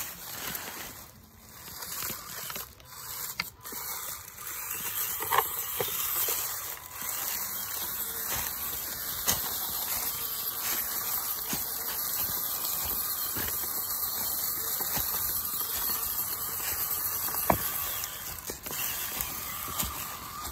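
Dry leaf litter rustling and crunching steadily, with a few sharp clicks.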